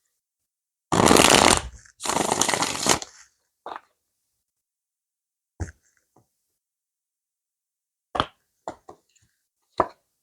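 Tarot cards being shuffled: two quick riffles of the deck about a second apart, then single cards laid down on the table with a few light taps.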